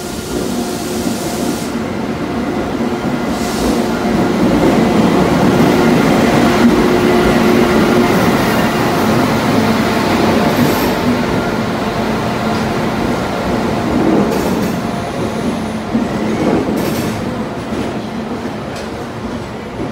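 Indian Railways WAP-7 electric locomotive and LHB coaches pulling into a platform: a rolling rumble with a steady hum, loudest as the locomotive passes about ten seconds in, then the coaches roll by as the train slows.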